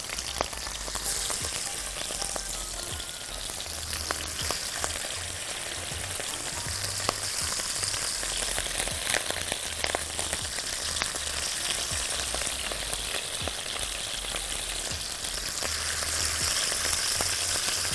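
Beef cubes sizzling in hot oil and butter in a wok as they are laid in one piece at a time: a steady hiss with scattered spitting crackles. The cold meat goes in gradually so the pan stays hot and the meat sears without letting out its water.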